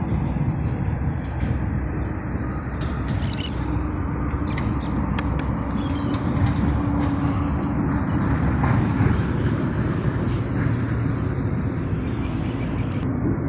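Steady, high-pitched insect drone, held unbroken, over a continuous low rushing noise of the open riverside.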